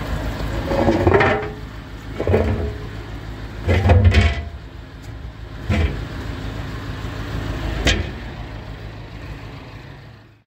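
Five heavy metal clanks and thuds, about one every one and a half to two seconds, as a metal manhole cover is set back into its frame over a drain chamber. A steady low engine drone runs underneath.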